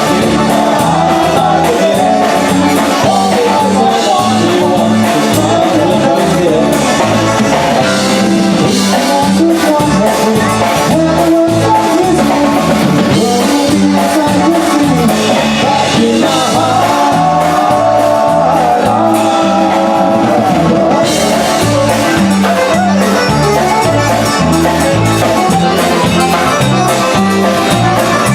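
Polka band playing a polka live, with a steady bass beat under the melody.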